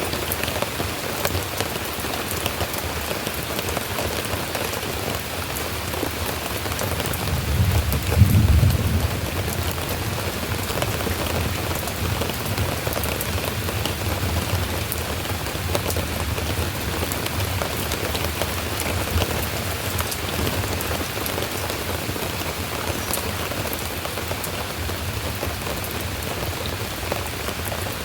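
Steady rain falling, with a low rumble of thunder that swells and peaks about eight seconds in, then fades.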